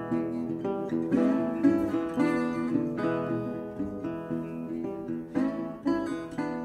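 Background music played on acoustic guitar, with strummed chords.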